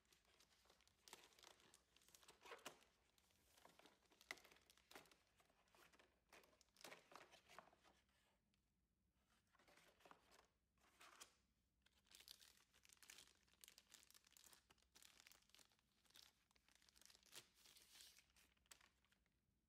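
Faint rustling and crinkling of packaging being handled and unwrapped, in irregular bursts with a short pause about nine seconds in.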